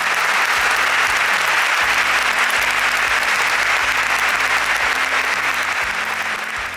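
A large audience applauding: dense, steady clapping that fades near the end.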